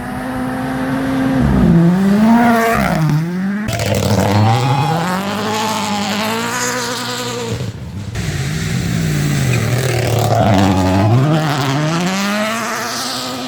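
Rally car's turbocharged four-cylinder engine revving hard and dropping back repeatedly through gear changes and braking. Its pitch climbs and falls several times, with abrupt breaks about four and eight seconds in.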